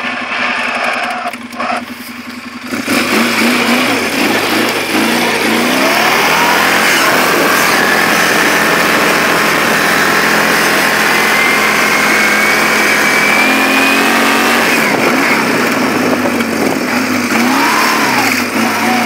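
A 2004 Polaris 600 twin ATV's engine idling for the first few seconds, then revving up as the quad pulls away. Its pitch climbs steadily for about ten seconds, drops back, and climbs again near the end.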